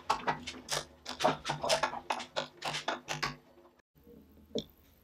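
Wooden parts and tools being handled on a workbench: a quick, irregular run of clicks and knocks that stops after about three and a half seconds, then one short knock.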